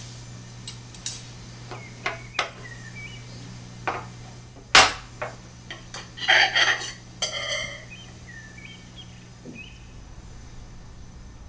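Knife and fork clinking and scraping on a plate while food is cut, with a series of sharp clicks. The loudest clink comes about five seconds in, followed by a cluster of ringing scrapes a second or two later.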